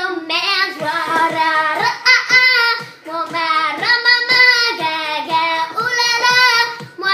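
A young girl singing in a high voice, holding notes with short breaks between phrases and no clear words.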